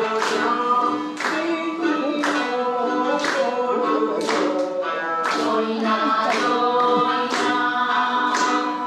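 Japanese folk song for the dance: singing over an instrumental accompaniment, with a sharp clap-like beat about once a second.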